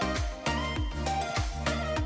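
Upbeat background music with a steady beat of deep drum hits.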